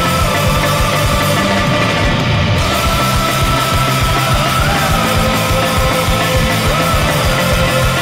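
Hockey goal song: loud heavy rock music with a fast, pounding drum beat.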